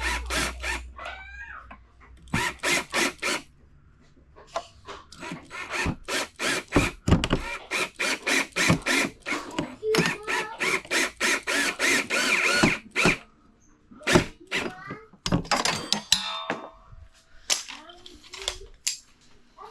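Tool work on an ATV: many short, sharp knocks and scrapes in quick, irregular runs, with a low rumble at the start.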